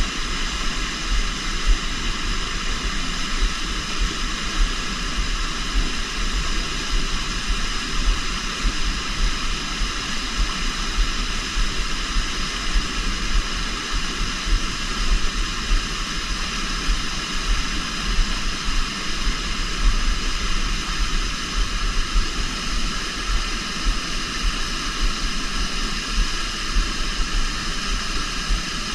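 River water rushing steadily, an even hiss with no break.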